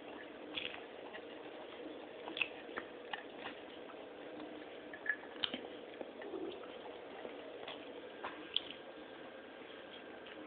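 Pets eating: irregular small wet clicks and smacks, a few every second, over a faint steady hum.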